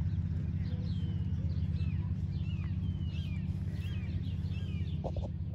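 Small birds chirping over and over, over a steady low rumble.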